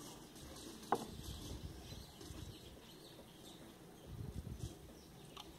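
Faint handling of a metal spanner and the pump's piston assembly: a single sharp click about a second in, a low rumble a little past four seconds in, and a few light clicks near the end.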